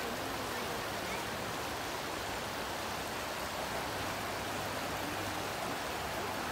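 Shallow river water rushing over rocks in a riffle, a steady, even rushing.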